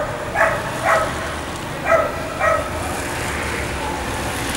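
A dog barking in short, high yaps, roughly half a second apart in the first half, then falling silent, over steady street background noise.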